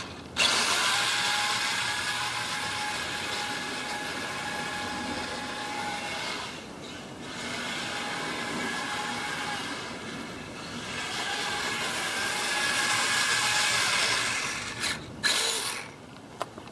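Kyosho Blizzard FR radio-controlled tracked snow cat with a 4500KV brushless motor running at full speed: a steady high motor whine over mechanical rattle. It eases off twice and picks up again, then dies away near the end.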